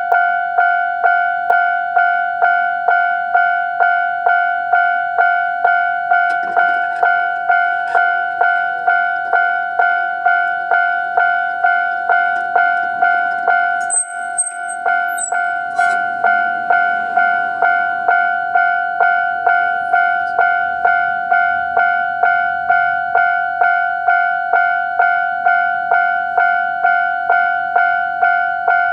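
Japanese railway level-crossing alarm ringing its standard electronic bell tone, an evenly repeated ding at about two strikes a second, each strike fading quickly.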